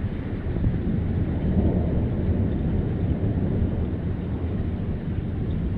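Rolling thunder rumbling low and steady, with no sharp crack.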